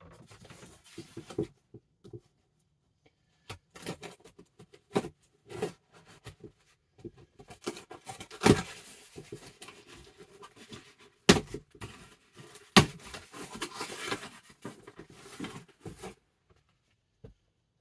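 Mail package being opened by hand: irregular rustling, crinkling and tearing of the packaging, with several sharp clicks or snaps, the loudest about halfway through.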